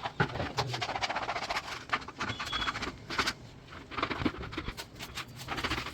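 Irregular scratchy scraping strokes of Heatex contact adhesive being spread over a mica laminate sheet, with a brief high chirp about two and a half seconds in.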